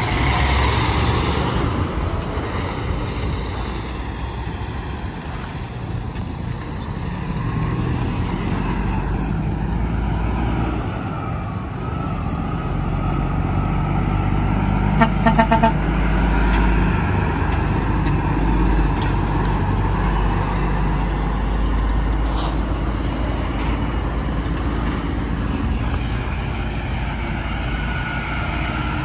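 Heavy trucks and other traffic passing on an interstate highway: steady engine and tyre rumble with vehicles sweeping by, and a quick series of short horn toots about halfway through.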